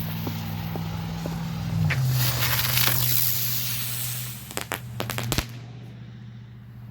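Small Green Dragonfly flying spinner fireworks hissing for about four seconds, followed by a handful of sharp pops and cracks. A low steady hum runs underneath.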